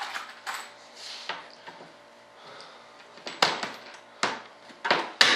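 Scattered sharp clicks and clacks of hands and tools working on a fibreglass wing mold, a few louder knocks in the second half, the loudest near the end.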